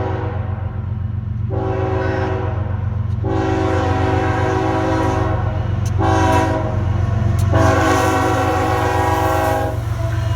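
Locomotive air horn on a GE ES44AC sounding the grade-crossing signal: two long blasts, a short one and a final long one, each a steady multi-note chord. The end of an earlier blast fades out just before the first long blast. The approaching train's steady low rumble runs underneath.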